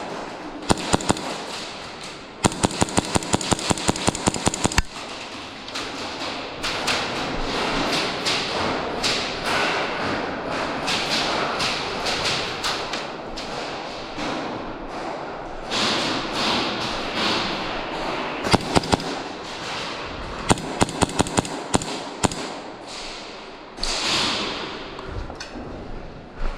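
Airsoft gun firing in rapid strings of shots, the longest lasting about two and a half seconds a little over two seconds in, with further bursts near the end and a steady noisy background of play between them.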